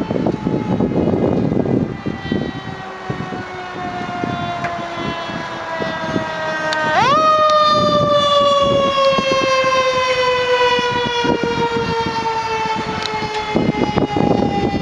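Fire truck siren whose pitch slides slowly down, jumps sharply back up about seven seconds in and then slides slowly down again, over the rumble of the trucks' engines.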